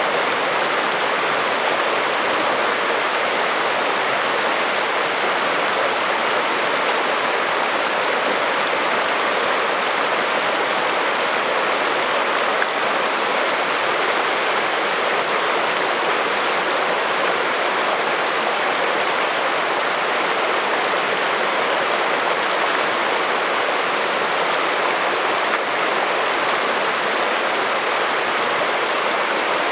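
Shallow, rocky alpine creek running over cobbles and small riffles: a steady, even rush of water.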